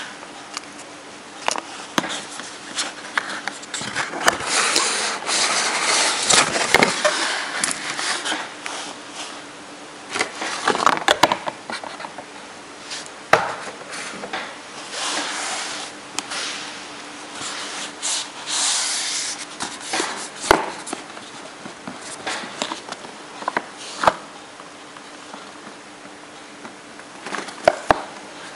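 Cardboard graphics-card box and its plastic wrapping being handled and opened: irregular rustling, rubbing and scraping, with scattered sharp taps and knocks.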